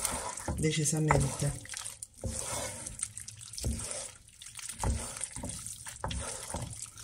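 Two wooden spoons tossing fettuccine in a loose, creamy butter-and-parmesan sauce in a frying pan: irregular wet stirring sounds with a few knocks of the spoons against the pan.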